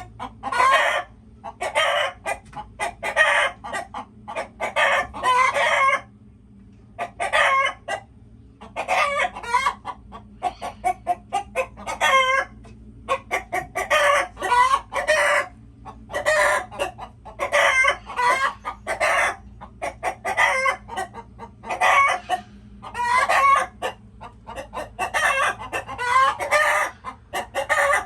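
Chickens clucking and cackling in a steady run of short calls, one burst every second or so, with a brief lull about six seconds in.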